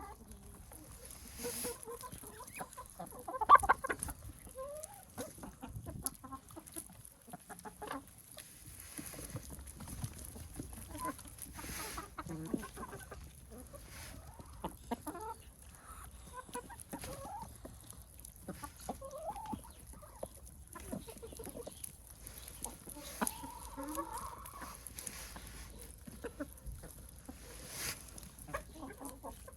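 A flock of chickens clucking, with scattered short calls, one louder squawk about three and a half seconds in.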